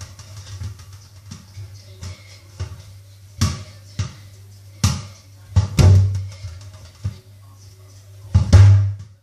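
Music with drums playing, with a steady low hum under it. A handful of loud, sharp thumps land at uneven intervals, the loudest near the end.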